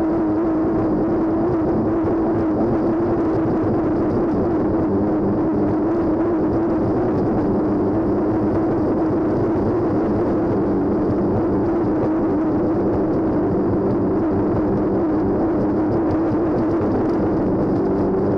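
Hydroplane race boat's engine running flat out at racing speed, a steady drone heard from inside the closed cockpit over a rush of water and hull noise.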